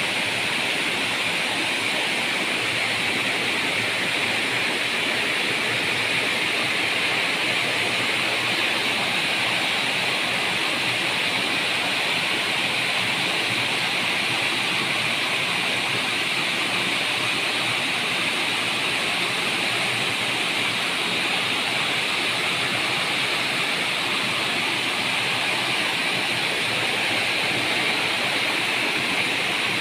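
Mountain stream rushing over boulders in small white-water cascades: a steady, even rush of water with no breaks.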